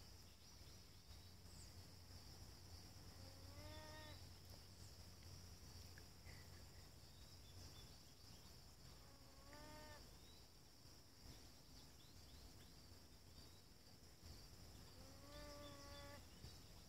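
North American beaver calling: three faint whining cries, each under a second long and rising in pitch before it levels off, about six seconds apart. The uploader takes these as the beaver calling out for its companion. A steady high drone of insects runs underneath.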